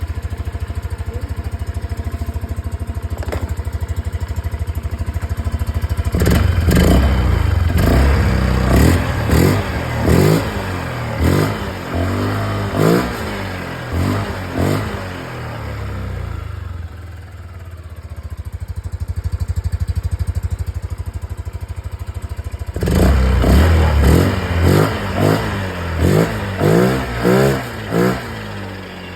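Yamaha NVX scooter's single-cylinder engine through an exhaust with its baffle removed, idling and then blipped through a series of quick revs, settling back to idle and revved again in a second series near the end.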